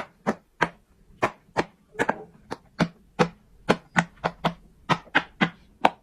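Silicone pop it fidget toy bubbles being pressed through one after another by fingers, each giving a sharp pop. There are about three pops a second, growing slightly quicker near the end.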